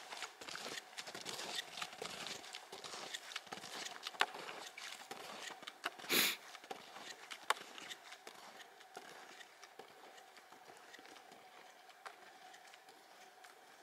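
Snowshoe footsteps crunching in snow, a quick irregular run of crunches that grows fainter as the walker moves away. A single louder burst of noise stands out about six seconds in.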